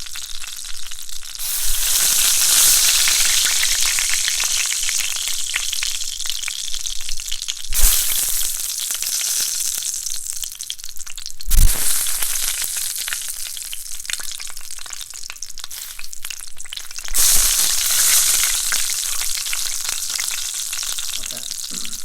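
Bacon frying hard in a pan: a loud, dense, greasy sizzle full of crackling pops, swelling louder at several points.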